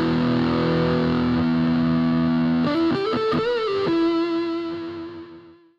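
Intro music: distorted electric guitar holding chords, with a short bending lick in the middle, fading out near the end.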